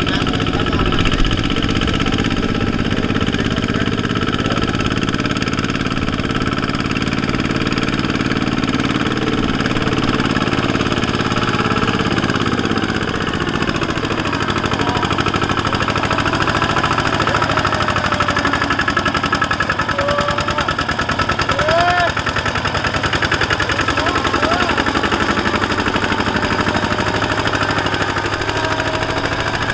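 Two-wheel walking tractor's single-cylinder diesel engine running hard and steady with a fast, even knocking beat, under load as it drags a sack-laden trailer through deep mud.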